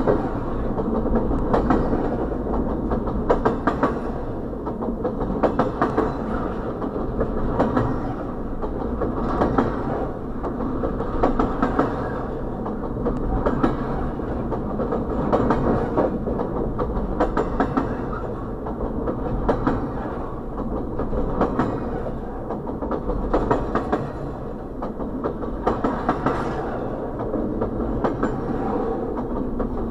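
Intermodal freight train cars rolling past close by: a steady rumble of steel wheels on rail, with clusters of clicks as wheel sets cross the rail joints, repeating every couple of seconds.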